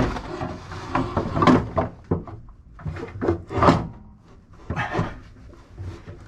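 A heavy isolation transformer being shoved and knocked into a tight mounting space: a series of bumps and scrapes, several in the first four seconds and one more near the end.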